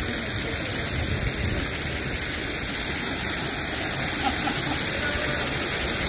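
Running water rushing steadily.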